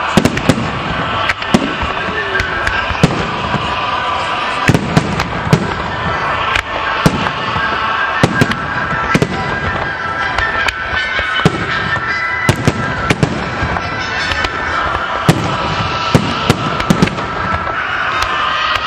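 Aerial firework shells bursting in quick succession: sharp, irregular bangs about one to three a second over a steady dense din.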